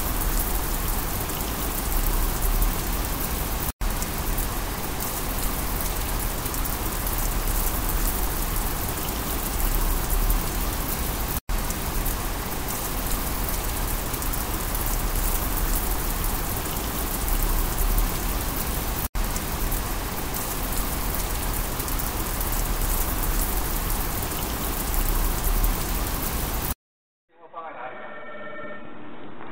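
Steady rushing water that sounds like heavy rain, a looped sound effect with a brief dropout about every eight seconds. Near the end it cuts off and a telephone ringing tone starts over a phone line.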